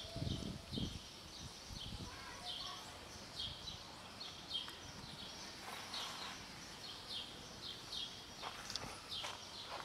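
Cat crunching dry kibble in scattered sharp clicks, with small birds chirping in short falling notes a couple of times a second in the background. A few low thumps in the first two seconds.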